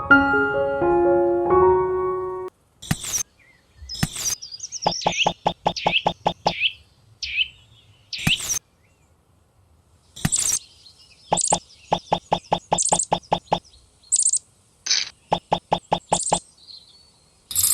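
A short keyboard melody, then bird chirps and rapid chirping trills broken by a few sharp clicks.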